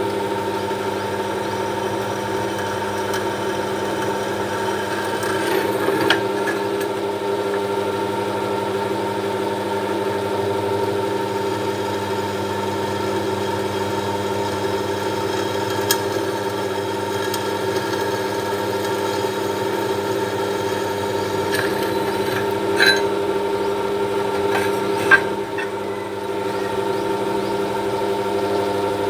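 Bench drill press motor running with a steady hum while a small bit drills holes into an aluminium heat sink, fed down slowly. A few short clicks and knocks stand out over the hum, the sharpest just past the middle.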